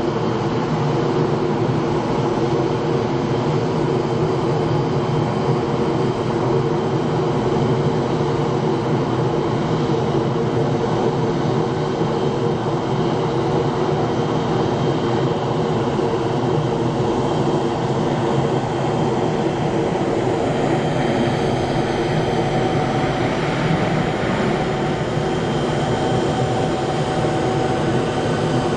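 Steady drone of jet aircraft engines, with a constant low hum, and a faint rising whine in the second half.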